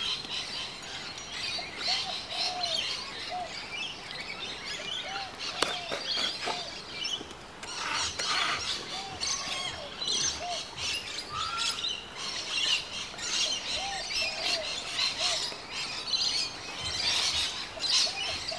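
Birds chirping and calling throughout, many quick high chirps, with a short lower call repeated every second or so.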